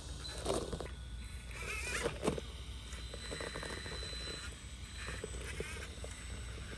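RC4WD Miller Motorsports 1/10 scale Pro Rock Racer crawling over rock, with scattered short scrapes and clicks of its tyres and chassis on stone.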